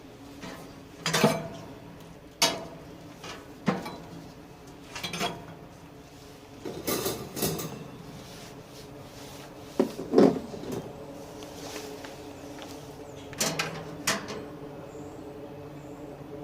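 A series of about ten knocks and clunks, some in quick pairs, from parts of a metal grill smoker being handled, over a steady low hum.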